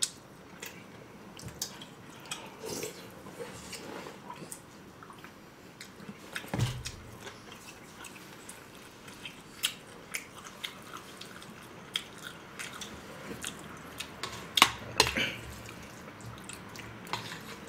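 People chewing food at close range, with scattered short clicks of chopsticks and spoons against bowls and plates; a few louder knocks come about seven seconds in and again near the end.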